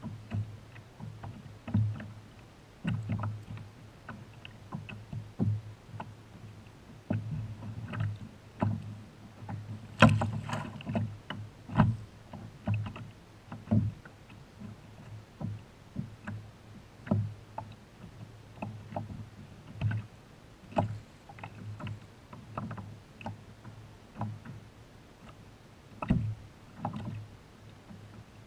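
Irregular hollow knocks and water slaps on a kayak hull, with the sharpest knock about ten seconds in.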